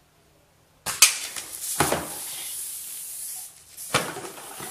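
An air rifle shoots a steel BB into a full beer can about a second in, with a sharp crack of the hit followed by a hissing spray of beer from the burst can. A second sharp hit with more spraying comes near the end.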